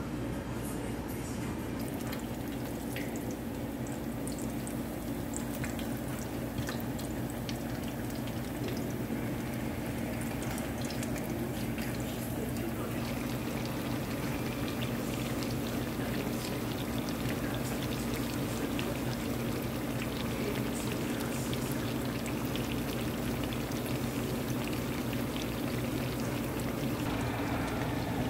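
Cooking at the stove: a metal spoon stirring ground chorizo in a pan, then gorditas sizzling in hot oil with many small pops and crackles, over a steady low hum.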